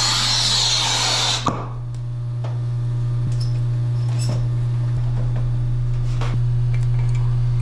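A hiss of escaping gas for about a second and a half, ending in a sharp click, over a steady low machine hum. Then light metallic tool clicks as a refrigeration compressor is unbolted and lifted out of its condensing unit.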